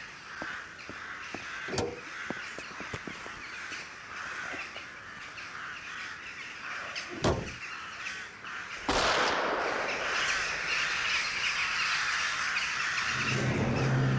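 Crows cawing in an outdoor ambience, with a single sharp bang about seven seconds in. A louder rushing noise rises at about nine seconds, and orchestral music with low strings comes in near the end.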